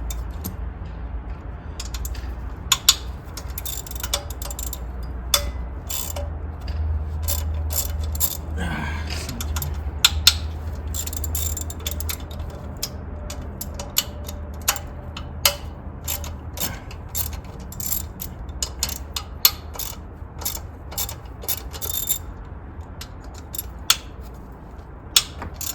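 Hand ratchet wrench clicking in irregular runs as the upper intake plenum bolts are backed out, with sharp metallic clicks and ticks throughout.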